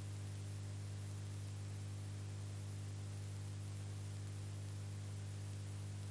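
Steady low electrical hum with even hiss and no other sound: the silent 8 mm film transfer carries no recorded audio, only noise.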